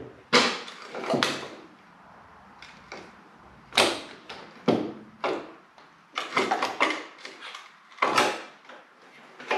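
Irregular knocks and clunks of parts and tools being shifted and worked on a motorcycle frame while a part is pried out, with short pauses between hits.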